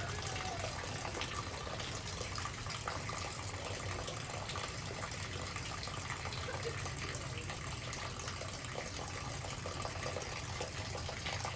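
Steady rush of rainwater running off after a thunderstorm: an even, unbroken hiss with no changes.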